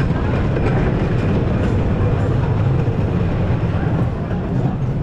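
Gravity Group Timberliner train of a wooden roller coaster rolling along the track into the station, its wheels making a steady low rumble that eases a little near the end.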